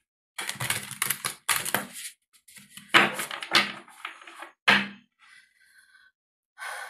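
Tarot cards being shuffled or handled by hand: a run of quick papery clattering bursts, then fainter rustling for the last couple of seconds.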